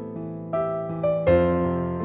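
Background music: a piano playing slow, sustained notes, with a louder chord struck about a second and a quarter in.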